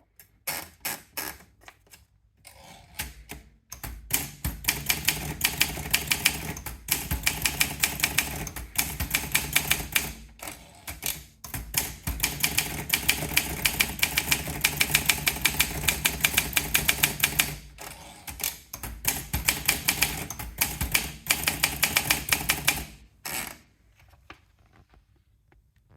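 Olympia Monica manual portable typewriter being typed on: runs of rapid key strikes broken by short pauses, stopping a couple of seconds before the end.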